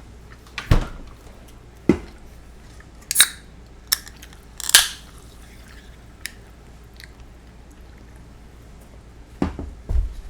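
Eating sounds from fried chicken karaage: a handful of short, crisp crunches and clicks spread through the few seconds, with quiet chewing in between.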